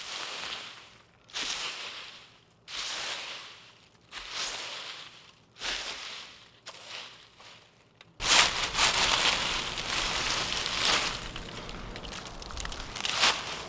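Plastic-bristled broom sweeping dry leaves, a swish and crunch about once a second. About eight seconds in, a louder, continuous crunching rustle of dry leaves takes over.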